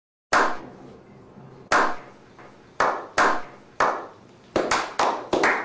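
A slow clap by a few men: single hand claps spaced a second or more apart, then speeding up into quicker clapping near the end.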